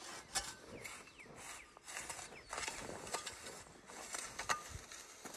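Duc hand plow's steel point scraping through dry tilled soil as it is pushed along a row, in irregular scratchy strokes with footsteps on the loose dirt.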